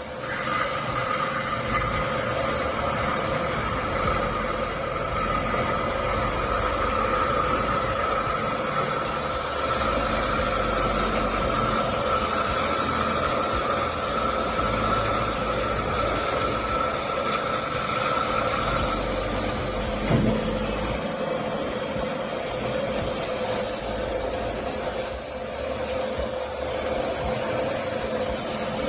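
A machine running steadily, with a constant mid-pitched hum and a higher whine that stops about two-thirds of the way through; a single sharp knock follows shortly after.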